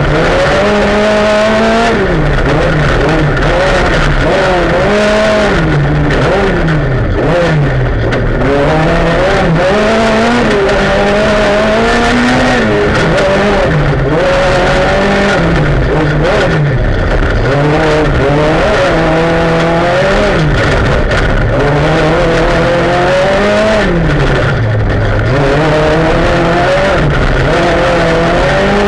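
Rally car engine heard from inside the cockpit at full stage pace, its pitch rising under acceleration and dropping back again and again through gear changes and corners.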